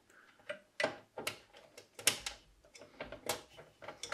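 About a dozen sharp, irregular clicks and light knocks as hands handle cables and parts inside a metal computer case.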